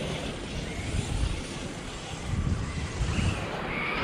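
Wind buffeting the microphone, with the whine of an electric radio-controlled monster truck's motor in the distance, which rises near the end.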